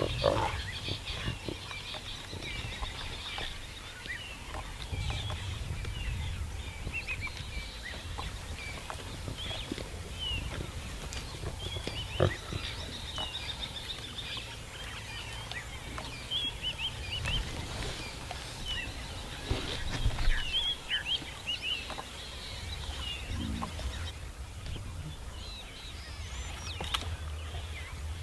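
Lion cubs grunting and growling as they tussle and scramble up a tree trunk, over continuous small bird chirps and a low steady rumble, with a few brief louder sounds near the start, about twelve seconds in and about twenty seconds in.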